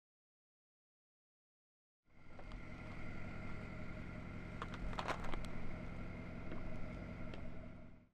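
Silence for about two seconds, then a steady low hum of idling vehicle engines with a few faint clicks.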